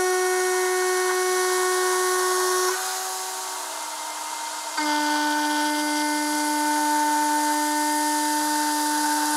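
CNC milling machine's end mill cutting aluminium at about 20,000 rpm: a steady high-pitched whine with overtones. About three seconds in the cut ends and the sound drops to a quieter spindle whine. Near five seconds a second cut at about 19,000 rpm starts, slightly lower in pitch, and runs on steadily.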